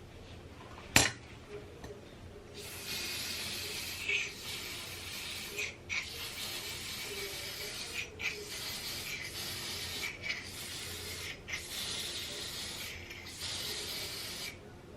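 Aerosol spray can hissing onto a wig in a series of long bursts of one to three seconds each, with brief pauses between them. One sharp click comes about a second in.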